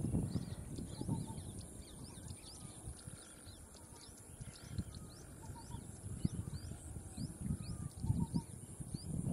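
Small birds chirping over and over, quick rising chirps with a few lower calls now and then, over low, irregular thumps and rumble.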